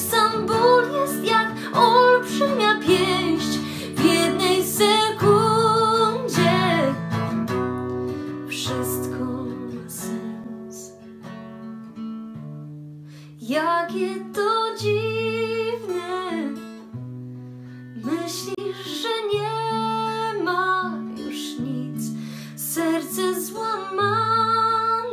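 Pop song with acoustic guitar and a stepping bass line, and a woman singing in phrases; the voice drops out for a few seconds about a third of the way in.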